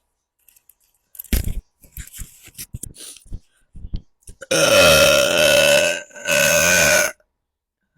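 A woman burping: two long burps back to back, starting about four and a half seconds in, each held on a steady pitch, with a run of short clicks before them.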